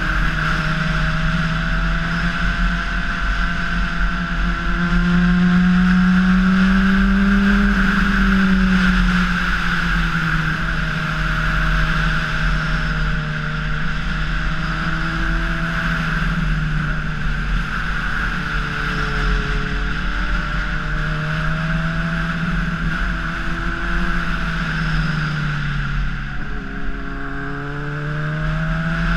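Honda CBR600RR's inline-four engine running at a cruise, its pitch gently rising and falling with the throttle, over a steady rush of wind and road noise. Near the end the engine note drops as the throttle is rolled off, then climbs again.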